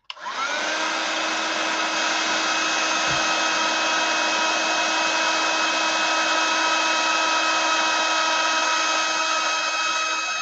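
Handheld craft heat tool (embossing heat gun) switched on. Its fan whine rises briefly as it spins up, then it runs steadily with a blowing hiss and a few steady whine tones, aimed at the card to heat the embossing glaze.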